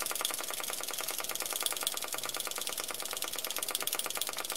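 Small hand air pump worked rapidly to inflate inflatable snowshoes, giving a fast, even clicking rhythm of about ten strokes a second.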